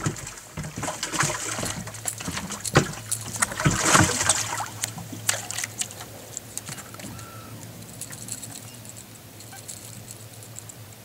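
Knocks and clatter of gear being handled on a bass boat, with a brief splash of water about four seconds in, over a steady low hum. The knocking thins out to a few light ticks in the second half.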